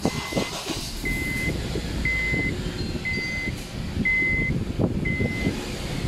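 An electronic beeper sounding a steady high tone about half a second long, once a second, six times, over a low rumble inside the car.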